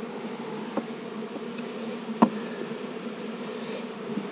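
Honey bees buzzing around an open hive in a steady, dense hum. Two light clicks cut through it, the sharper and louder one about two seconds in.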